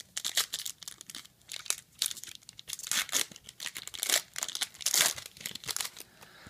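A Topps Chrome football card pack's wrapper being torn open and crinkled in the hands, a dense run of irregular crackles.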